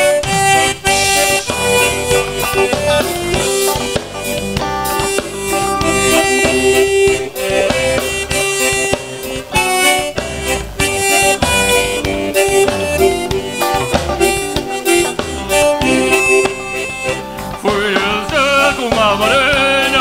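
Diatonic button accordion playing a quick dance tune, its steady reedy melody over rhythmic bass chords. Near the end a voice begins singing along.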